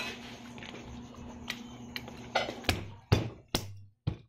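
Tableware at a meal: spoons and forks clicking and knocking against plates, a few scattered clicks and then a quicker run of sharper knocks in the second half, the loudest about three seconds in.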